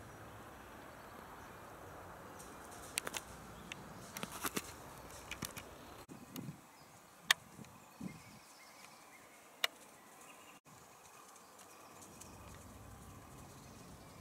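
Faint outdoor ambience, a quiet even hiss, broken by a scattered handful of sharp clicks and snaps, with a brief drop-out about ten seconds in.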